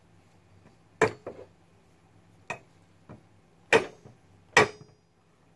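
Sharp metallic taps on a steel Model A front spindle assembly as it is worked onto the I-beam axle: a handful of separate knocks with smaller ones between, the last two loudest and ringing briefly.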